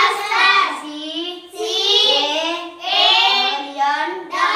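A young boy's voice chanting words in a drawn-out, sing-song way, about five or six long syllables with short breaks.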